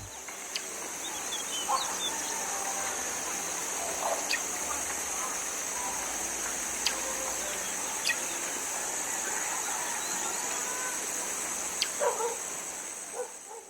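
Rural outdoor ambience: small birds chirping and a chicken clucking a few times, over a steady high-pitched hiss.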